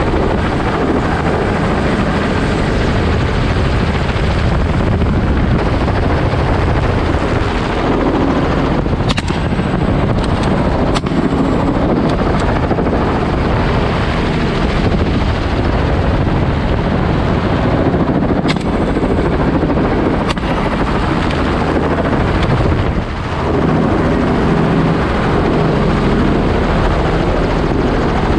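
Helicopter rotor and engine running steadily with a heavy rush of wind, heard from the open cabin. A few short sharp cracks cut through it, around nine to eleven seconds in and again around eighteen to twenty seconds.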